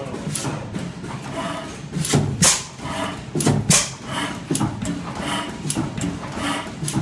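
Industrial Iron Works horizontal single-cylinder stationary engine running, with a sharp, regular mechanical beat about every three-quarters of a second over a steady low hum. The loudest beats come around the middle.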